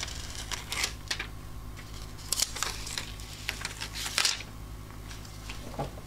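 Post-it notes being peeled off cardstock by hand: a run of short paper rustles and crackles at irregular intervals, over a faint low hum.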